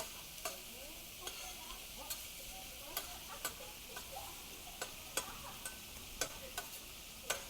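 Pork belly sizzling on a large iron griddle: a steady frying hiss with a dozen or so sharp clicks and taps at irregular intervals.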